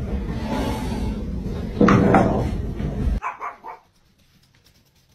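A pet animal crying out loudly in alarm about two seconds in, as it is scared by someone in a big-cat costume. A few short fainter sounds follow an abrupt cut.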